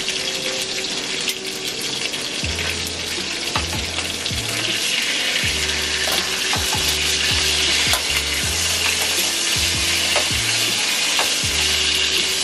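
Chicken back pieces sizzling as they fry in a stainless steel skillet, with the clicks and scrapes of metal tongs turning them. The sizzle grows louder about five seconds in.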